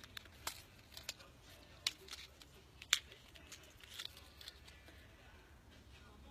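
Faint handling of a beaded necklace and its earring card: a few scattered sharp clicks and light rustles, the loudest about three seconds in.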